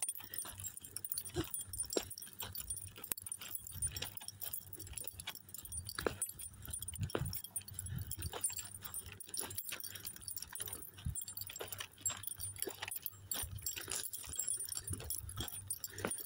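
Footsteps crunching on dry, loose beach sand, an uneven run of soft scuffs and clicks.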